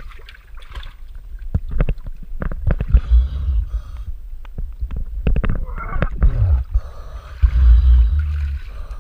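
Harbor water sloshing and gurgling around a diver's camera as it dips under the surface and back out, with bubbling. A run of sharp knocks and clicks comes in the middle, and heavy low rumbles of water on the housing come near the end.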